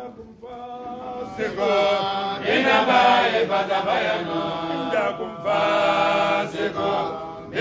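Men chanting an Islamic devotional song in long, held melodic phrases, starting softly and swelling about a second in, with a short break just past five seconds.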